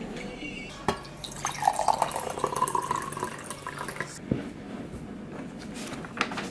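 Water being poured into a clear drinking glass, the pitch rising as the glass fills. About four seconds in, the glass is set down on the desk with a knock.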